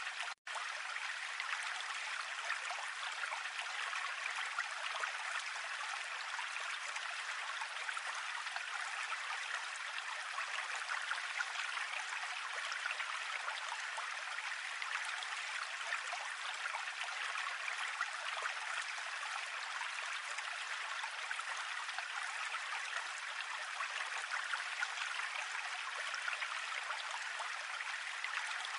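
Steady stream-like trickling of running water, with a brief break about half a second in.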